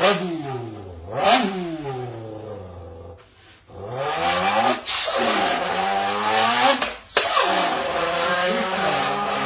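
A man imitating a sports car's engine with his mouth through a can: the revs climb and fall several times like a car accelerating through the gears, with a short break about three and a half seconds in.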